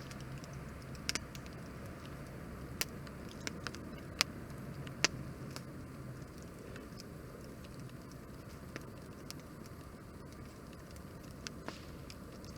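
Wood campfire burning with a steady hiss of flame and sharp crackling pops from the burning wood, the loudest about four and five seconds in and a quick pair near the end.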